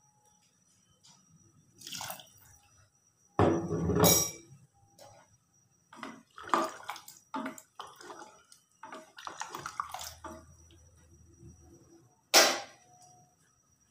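Soup being stirred with a wooden spoon in a metal pressure-cooker pot: irregular sloshing and splashing of the liquid with the spoon knocking against the pot, loudest about four seconds in, and a sharp knock near the end.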